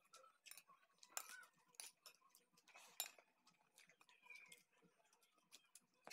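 Faint eating sounds: a handful of soft clicks from a metal spoon against a plate, and chewing and lip smacks. The sharpest click comes about three seconds in.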